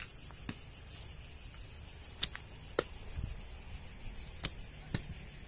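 Insects chirring steadily, with a few faint sharp clicks and taps of wooden arrows against a short bundle bow as an arrow is pulled from those held on the bow and nocked.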